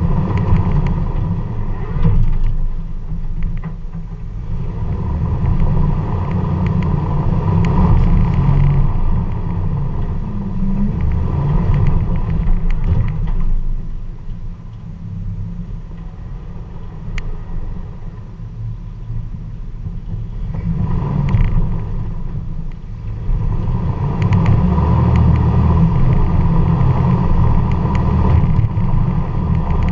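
Jeep TJ's swapped-in V8 engine rumbling at low revs as the Jeep crawls over rock, swelling and easing with the throttle: quieter through the middle stretch and louder again near the end, with a few sharp clicks.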